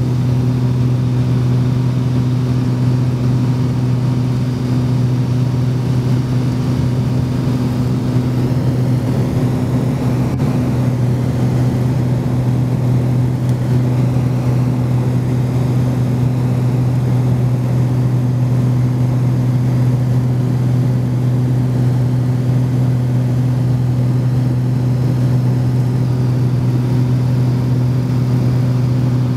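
Steady drone of a light aircraft's engine and propeller, heard from inside the cabin.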